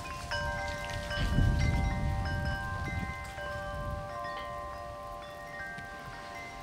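Chimes ringing: a run of clear, overlapping metallic notes at a handful of recurring pitches, over a low wind rumble on the microphone that fades after about two seconds.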